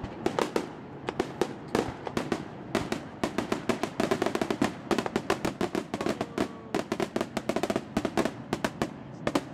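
Fireworks finale: a rapid barrage of aerial shell bursts, several sharp bangs a second, coming thickest in the middle and again near the end.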